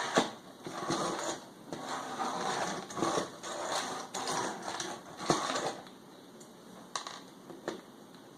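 Scraping, rattling and sharp clicks of small hand work on a plastic car-radio faceplate, taking out its small screws, with a busy stretch of scrapes about once a second and fewer, isolated clicks near the end.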